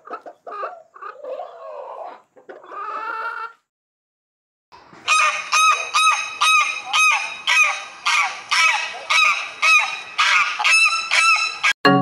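Hens clucking softly for the first few seconds. After a short pause comes a loud, fast run of mallard duck quacks, evenly repeated about three times a second until near the end.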